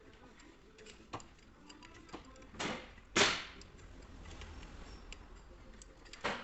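Hand tools at work on a car's rear shock absorber mount: scattered light clicks and knocks, with short bursts of noise about two and a half and three seconds in, the second the loudest, and another near the end.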